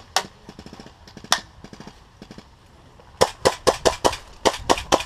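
Airsoft guns firing: two single sharp pops early, then a quick string of about a dozen pops from about three seconds in.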